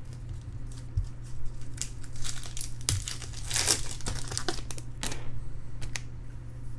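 Foil trading-card pack wrapper crinkling and being torn open by hand, in irregular short rustles that are loudest in the middle.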